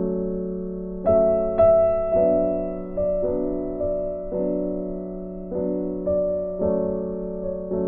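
Background music: a slow piano-style keyboard tune, its notes struck about once a second and left to ring.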